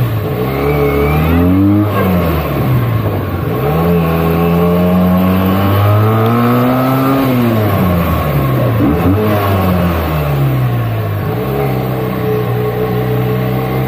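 Benelli 302S's 300cc parallel-twin engine through its stock exhaust, under way: revs climb and drop several times as it accelerates through the gears and eases off.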